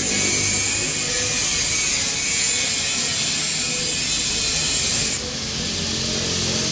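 A power tool running steadily in shop work on a motorcycle exhaust, with a hissing, grinding-type noise. Its highest hiss drops away about five seconds in.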